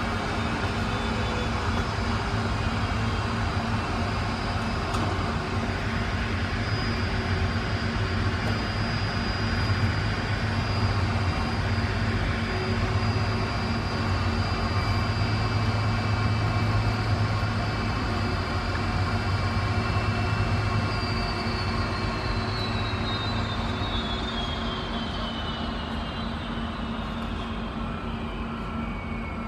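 Steady jet airliner noise: a low hum under several high whining tones. During the last several seconds one whine slides steadily down in pitch.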